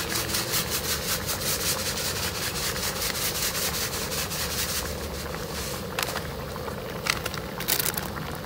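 Seasoning granules shaken from a packet into a wok of simmering goat stew: a quick rhythmic rustling at about five shakes a second that stops about halfway through, over a steady hiss, followed by a couple of single clicks.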